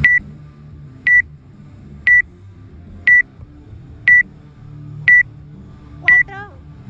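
Electronic countdown timer beeping, one short high beep each second, counting down to the start of a workout.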